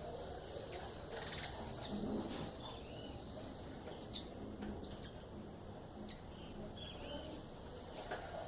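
Backyard birds giving scattered short, high chirps and brief calls over a steady low background hum, with a short rustle about a second and a half in.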